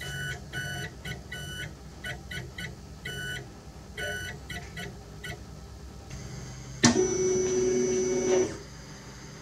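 Monoprice Select Mini 3D printer's stepper motors whining in short, stop-start tonal bursts as the print head moves. Near the end there is a louder steady tone lasting about a second and a half, starting with a click.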